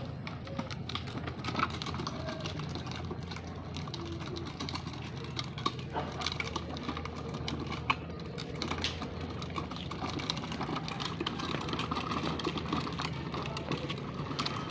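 Hard plastic wheels of a push-along ride-on toy car rattling and clicking over a rough concrete path as it is pushed, a dense run of irregular clicks.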